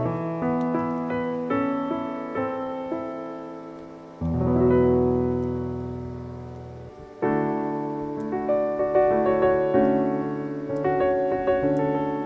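Background piano music: slow chords and melody notes, each struck and ringing away, with a long low chord about four seconds in that fades out before a new phrase starts around seven seconds.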